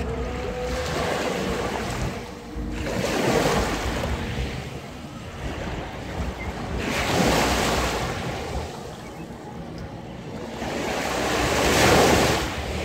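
Small waves breaking and washing up a fine pebble beach: a hissing surge of surf comes in about every three to four seconds, four times, between softer lapping. Wind rumbles on the microphone throughout.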